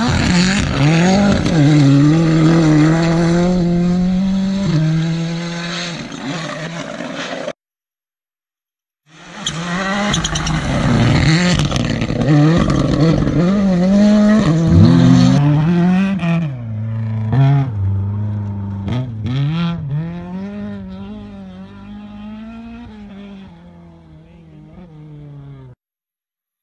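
Rally cars at full power passing on a gravel stage. The engine revs hard with quick gear changes that step the pitch up and down. There are two passes, split by a brief silent cut, and the second car's engine note drops and fades as it drives away.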